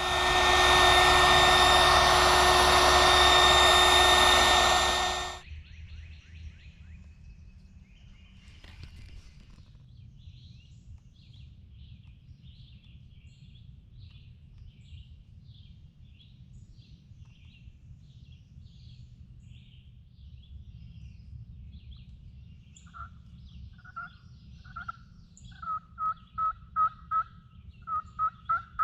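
A loud, steady rushing noise with a steady whine in it for the first five seconds. Then faint, repeated high chirps, and near the end a series of turkey yelps that grow louder and quicker.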